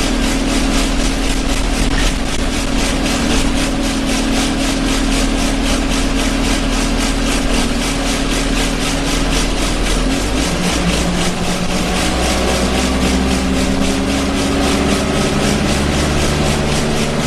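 Interior of an Alexander Dennis Enviro 200 single-deck bus under way: the diesel engine drones steadily under loud, rhythmic body vibration and rattling. About ten seconds in, the engine note drops, then climbs again, as at a gear change.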